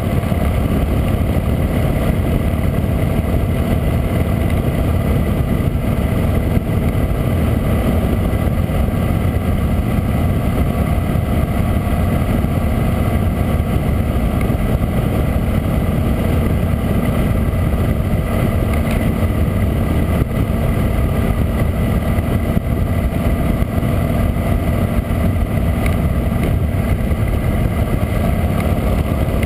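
Harley-Davidson V-twin motorcycle engine running steadily at cruising speed, heard from a camera mounted on the moving bike, mixed with wind rushing over the microphone.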